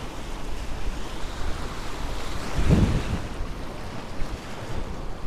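Waves washing against the jetty rocks with wind buffeting the microphone; a louder low rush comes nearly three seconds in.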